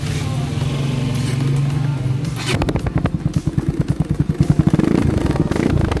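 Bajaj Pulsar NS200's single-cylinder engine running through an Apido aftermarket slip-on muffler, with the muffler's insides returned to the original setup for a louder, rounder tone. A steady drone for about two and a half seconds, then an even pulsing idle of roughly ten beats a second.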